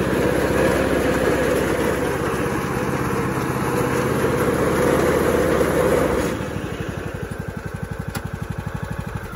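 Husqvarna YTH 18542 lawn tractor's 18.5 horsepower Briggs & Stratton engine running under throttle with the mower blade engaged. About six seconds in, the sound drops sharply and the engine runs on more quietly with an even pulsing beat.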